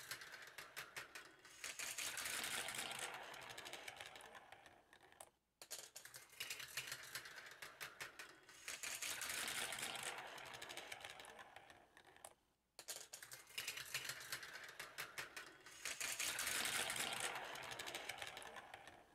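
Marbles running down a GraviTrax plastic marble run: quick clicks and rattles as they drop onto and strike track pieces, then a smooth rolling whirr along the track. The same run is heard three times.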